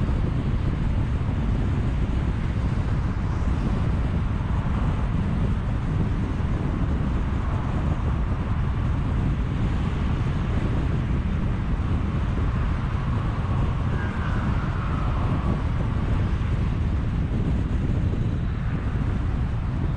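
Steady low rumble of wind buffeting the microphone and road noise from a vehicle cruising at about 86 km/h on the highway, with a faint falling tone about fourteen seconds in.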